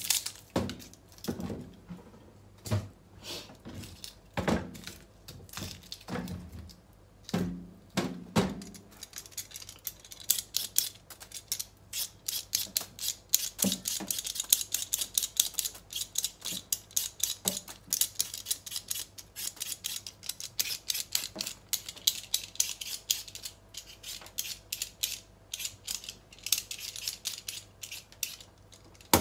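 A handheld vegetable peeler scraping the skin off a raw potato in rapid, repeated strokes. Before it, for about the first eight seconds, come scattered separate knocks and taps.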